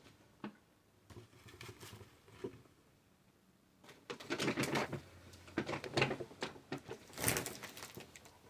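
Handling of packaged items being fitted into a basket: scattered light clicks and taps, then from about four seconds in several bouts of crinkling and rustling from plastic packaging.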